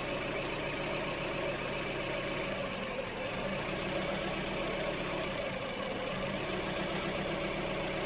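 2003 Hyundai Elantra's 2.0-litre four-cylinder engine idling steadily with a misfire on cylinder 3. The misfire comes from an intake manifold gasket leaking around the base of that cylinder's injector.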